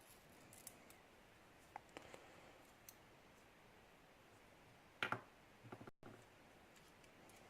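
Faint, scattered clicks and taps of small metal lock parts and tools being handled while a lock is taken apart, with a louder pair of clicks about five seconds in.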